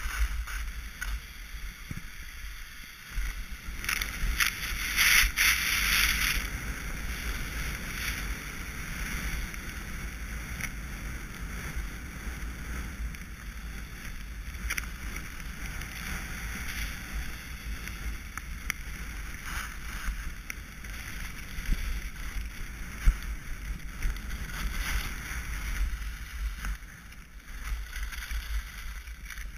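Rushing wind buffeting an action camera's microphone while skiing downhill, with skis hissing and scraping over the snow; a louder scraping spell comes about four to six seconds in.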